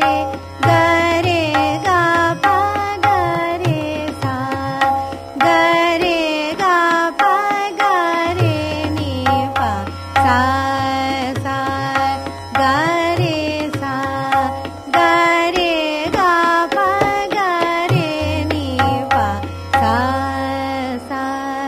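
Hindustani classical music in raag Hansadhwani: a melodic line with gliding notes plays the sthayi of a swar malika to tabla accompaniment in medium-tempo teentaal.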